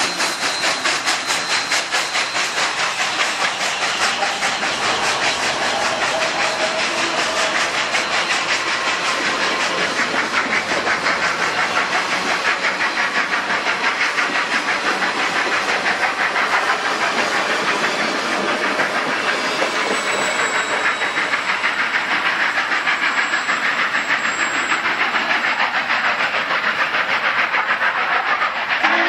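Union Pacific 844, a 4-8-4 steam locomotive, passing close by with steam hissing from its cylinder cocks, then its string of passenger cars rolling past with a rapid, steady clatter of wheels on the rails.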